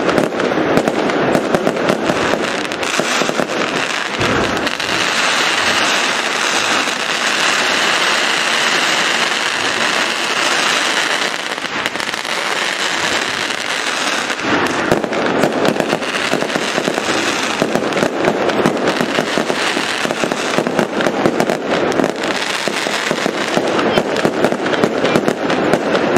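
Aerial fireworks going off in a dense, continuous barrage of rapid bangs and crackling, with a deep boom about four seconds in and a stretch of thicker crackling hiss through the middle.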